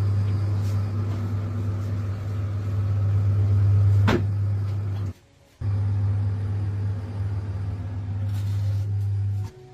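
An electric motor on a shop machine running with a steady low hum that holds one pitch. It cuts out abruptly for about half a second a little after five seconds in, then starts again, with one sharp click about four seconds in.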